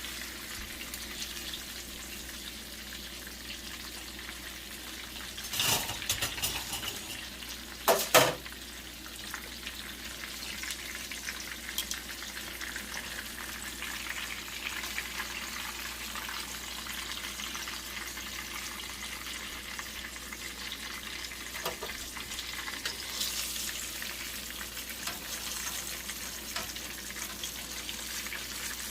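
Breaded chicken cutlets frying in hot oil in a frying pan, a steady sizzling crackle. Two short loud clatters break in about six and eight seconds in, the second the louder.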